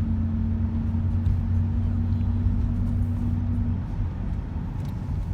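Car driving, heard from inside the cabin: steady road and engine noise with a low droning hum that stops about four seconds in, the noise carrying on a little quieter after it.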